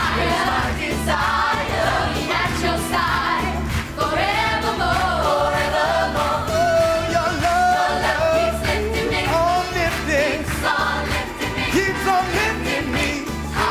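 Gospel choir singing in harmony over amplified backing music with a steady beat.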